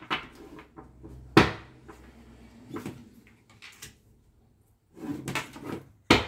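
A few sharp knocks, one about a second and a half in and one near the end, with fainter clicks and handling sounds between.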